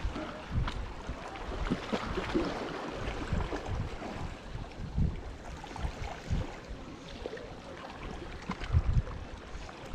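Wind buffeting the microphone in uneven low gusts, over water lapping.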